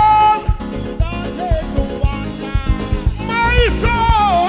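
Live band music heard close to the drum kit: drums and cymbals struck with sticks in a steady beat, under a melody line that bends and slides, strongest near the start and again from about three seconds in.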